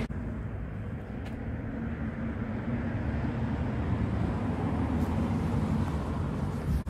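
Steady low rumble of a vehicle engine running nearby, with general street traffic noise.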